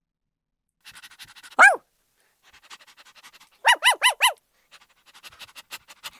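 A Paw Patrol toy's sound chip plays a cartoon pup barking through its small speaker: a single bark, then four quick barks in a row. Between the barks there is rapid fine plastic clicking from the toy's mechanism.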